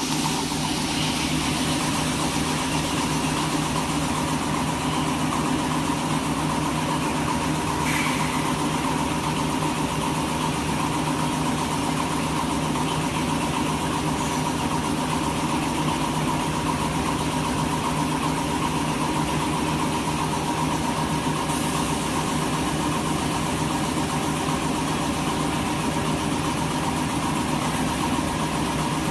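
Z-fold hand towel paper production line running: a steady machine hum with several held tones. There are a couple of faint clicks, one about eight seconds in and one about two-thirds of the way through.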